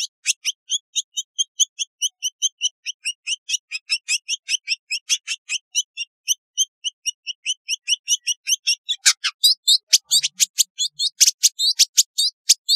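Village indigobird song: a fast, unbroken string of short, high-pitched chirps, about five a second. The notes turn louder and harsher about nine seconds in.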